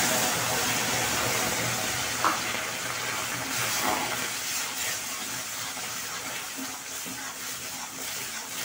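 Water poured into a hot kadai of toasted lentil dhoka mix, hissing and sizzling and slowly dying down as the mix takes up the water. A steel spatula scrapes the pan a few times as it stirs.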